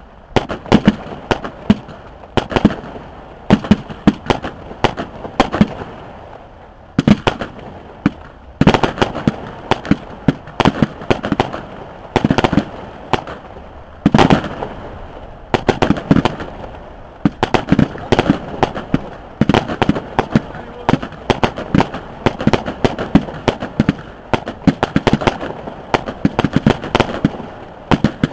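Fireworks display: aerial shells bursting overhead in a rapid, near-continuous run of bangs and crackles, with a few brief lulls.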